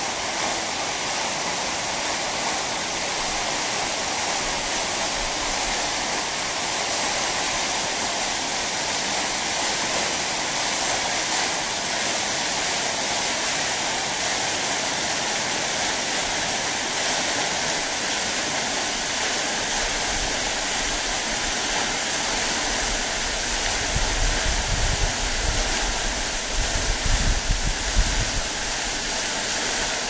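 Waterfall water rushing in a steady, full roar. In the last several seconds, uneven low rumbling comes and goes beneath it.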